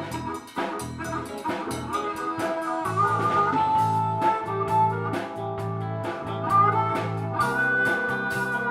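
Blues band playing an instrumental break: lead guitar over bass and drums at a steady shuffle.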